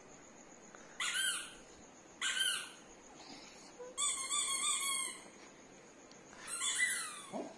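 A dog whining in four high-pitched calls that rise and fall in pitch; the third is held for about a second.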